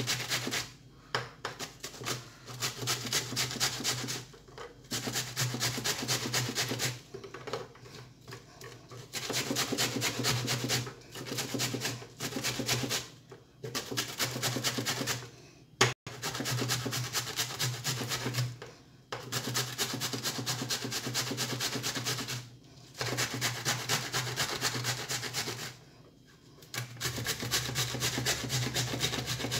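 Cucumber being grated, peel and all, on a fine stainless-steel hand grater: quick back-and-forth rasping strokes in runs of a few seconds with short pauses between. One sharp knock about halfway through.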